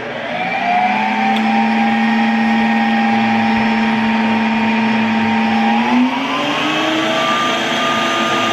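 Ninja Creami ice cream maker's motor spinning up and running steadily with a whine as its blade churns a frozen pint. The pitch steps up about six seconds in.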